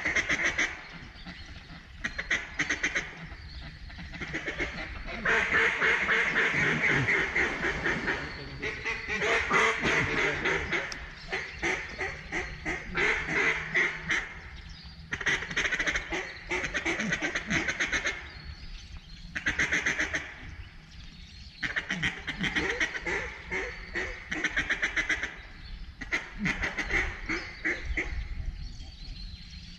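Duck calls blown in mallard-hen style: rapid quacking and chatter repeated in runs of one to several seconds, with short pauses between, calling to ducks over the decoys.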